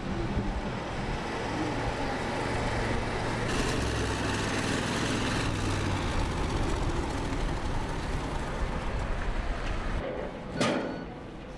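Steady engine rumble of an armoured personnel carrier with street noise, then a single sharp bang about ten and a half seconds in.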